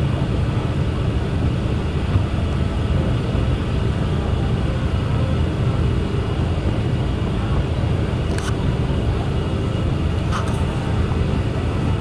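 Ferry boat underway, its engine running in a steady low rumble. Two faint clicks come near the end.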